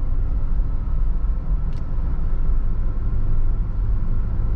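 Jeep driving at about 30 mph, heard from inside the cab: a steady low rumble of engine and tyre noise.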